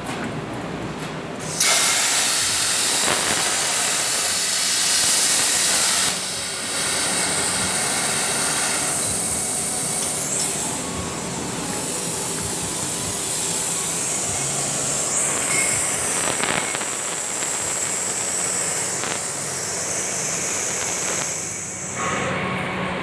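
A 100 A CNC plasma cutting torch strikes its arc about a second and a half in and cuts steel plate: a sudden, loud, steady hiss that wavers briefly a few times as the cut goes on, then cuts off near the end.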